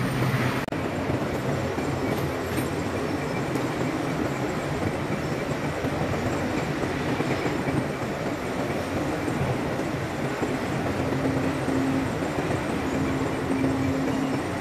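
Steady, unbroken noise of heavy port machinery running, with a faint steady hum joining in over the last few seconds.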